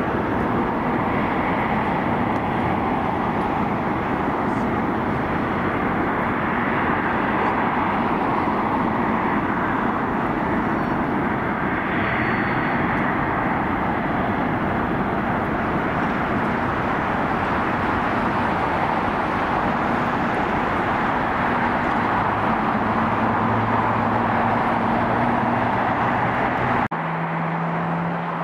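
Jet airliner engine noise: a loud, steady roar, with a low drone growing stronger late on. About a second before the end the roar cuts off abruptly and gives way to a quieter steady hum.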